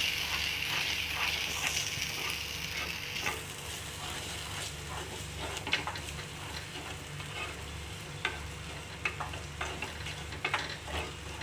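Ground spice paste, shallots and garlic frying in sesame oil in a clay pot, sizzling, while a wooden spatula stirs and scrapes against the pot with scattered clicks. The sizzle is strongest for the first few seconds, then eases.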